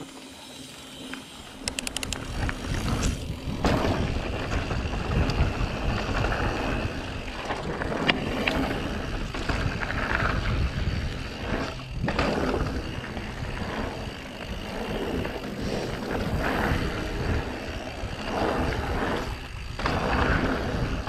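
Orbea Occam AM mountain bike riding down dirt singletrack. Its tyres run over the packed dirt and the bike rattles and clicks over bumps, with wind rumbling on the unshielded camera microphone. The noise builds over the first couple of seconds as the bike gets up to speed.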